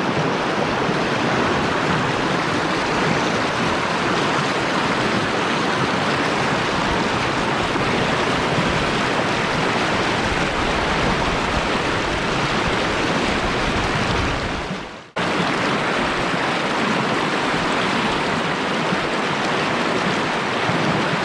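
Steady rush of a fast mountain river over stones. About fifteen seconds in it fades away for a moment and comes back abruptly.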